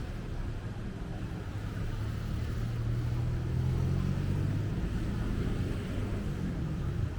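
Street noise with a motor vehicle's engine running, a low steady hum that grows louder about three seconds in and eases off near the end.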